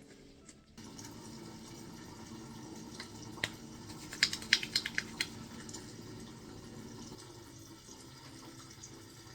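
Steady rushing of running water, with a quick run of sharp clicks near the middle.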